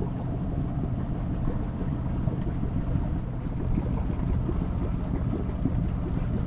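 Sailboat's auxiliary engine running steadily under way.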